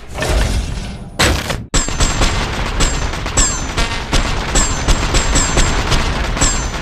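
Sci-fi sound effect of a giant robot firing a missile volley. A short loud burst comes about a second in, then a rapid string of launch blasts follows, roughly three a second, many of them trailed by a high falling whistle.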